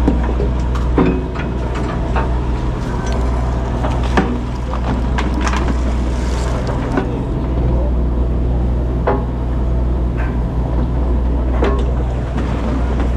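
A boat's engine running with a steady low drone, with scattered short knocks and clatter on top.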